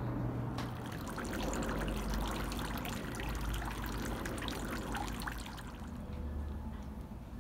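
Water trickling and splashing from thin spouts into a shrine's temizuya purification basin. It starts about half a second in and stops about three-quarters of the way through.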